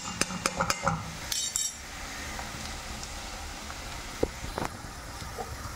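Metal slotted spatula clinking and scraping against a steel kadhai while stirring onion and spice masala, several quick clinks in the first two seconds, then a low steady background with a couple of light taps.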